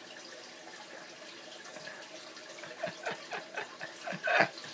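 Pomeranian–Chihuahua puppy licking a man's ear: a run of short wet smacking and slurping sounds starting a little under three seconds in, with a short laugh from the man near the end.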